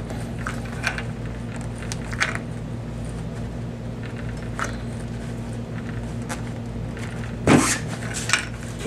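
Faint scrapes and light knocks of hands pressing a plastic compression fitting into a rubber grommet in a PVC pipe, with one louder scrape about seven and a half seconds in, over a steady low hum.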